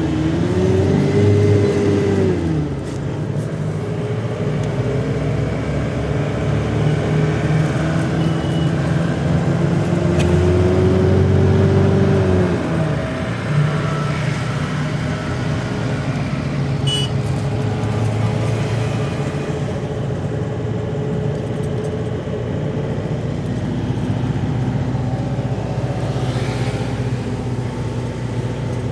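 Car engine running under way, its pitch climbing and then falling away twice in the first half, then running more steadily with road noise.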